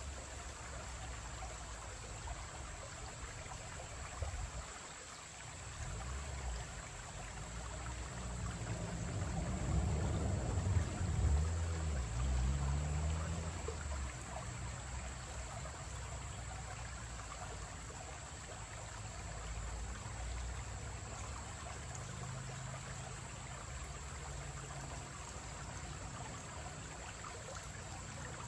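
Shallow creek trickling over rocks. About a third of the way in a low rumble swells and fades over several seconds, a vehicle crossing the covered bridge.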